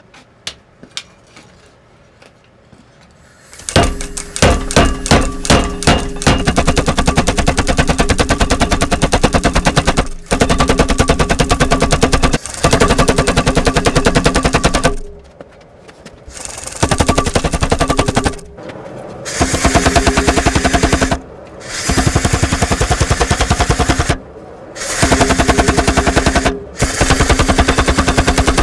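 Power hammer pounding a red-hot leaf-spring steel bar. About four seconds in it starts with a few separate blows, then goes into runs of rapid, even blows with a ringing tone, stopping briefly and starting again several times.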